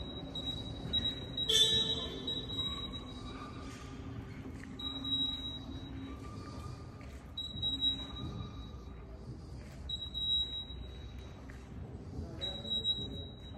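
Crown TSP6500 turret truck's warning beeper sounding a high steady tone in repeated pulses of about a second while the truck travels, over a low electric-drive rumble. A single sharp clack about a second and a half in is the loudest sound.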